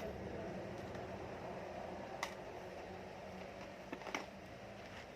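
A few faint clicks and taps of small tools and parts being handled on a repair bench, over a steady low hum.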